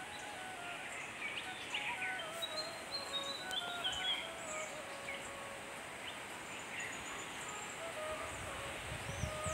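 Background music with a slow melody of held notes stepping up and down, over a steady hiss with bird chirps.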